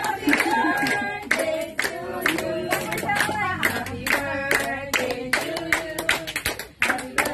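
A group of voices, children and women among them, singing a birthday song while hands clap along in a steady rhythm, a few claps a second.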